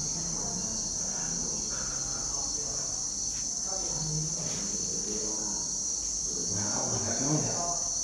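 Insect chorus making a steady, high-pitched drone, with faint voices talking underneath near the end.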